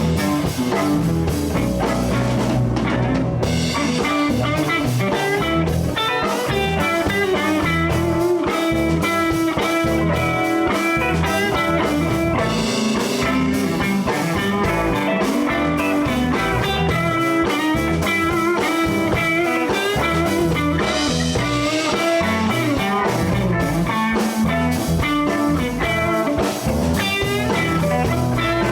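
Live blues band playing an instrumental section, with an electric guitar lead over bass and drums.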